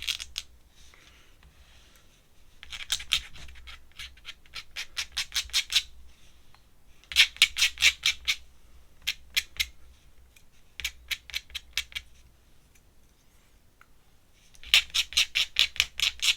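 Ink pen scratching across paper in rapid hatching strokes, several a second, in short bursts with pauses between.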